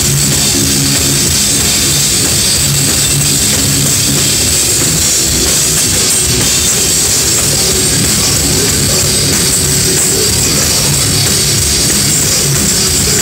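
Heavy metal band playing live at full volume, with distorted guitars and a drum kit, recorded through a phone's microphone that makes it sound harsh and overloaded.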